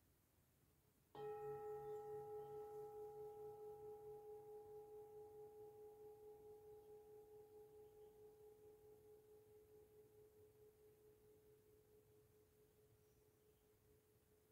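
A metal singing bowl struck once about a second in, ringing with a steady pitch and a few fainter overtones. The ring wavers in loudness and fades slowly over about ten seconds.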